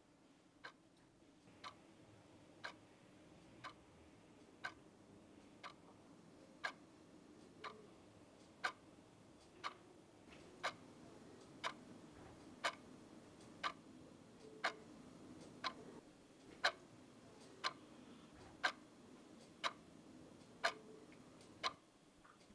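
A clock ticking steadily about once a second, the ticks growing louder as it goes on, over a faint low room hum.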